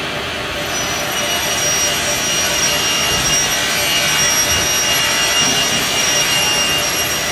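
Haas SL-30 CNC lathe running, its spindle turning a metal part while a turret tool cuts it: a steady machine hiss and hum, with a thin high whine that sets in about a second in.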